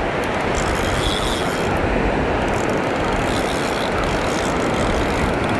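Spinning fishing reel being cranked, its gears whirring steadily as line is retrieved against a hooked fish that is still fighting.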